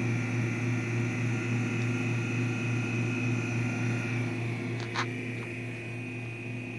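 Air particulate sampler's pump running with a steady low hum and a faint high whine as it draws air through its paper filter. A single click about five seconds in.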